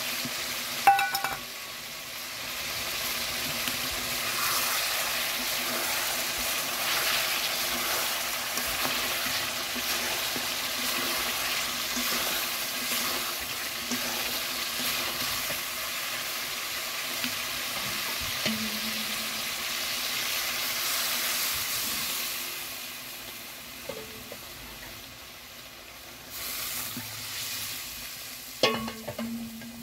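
Chicken curry sizzling and simmering in a wide metal karahi while a metal spatula stirs and scrapes it. A loud ringing clank of metal on the pan comes about a second in and another near the end, with lighter knocks in between. The sizzle grows quieter in the last third.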